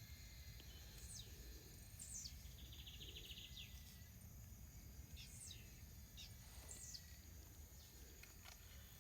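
Faint outdoor night chorus of insects: a steady high insect drone, a short cricket-like trill about three seconds in, and scattered quick, high downward-sweeping chirps, over a low rumble.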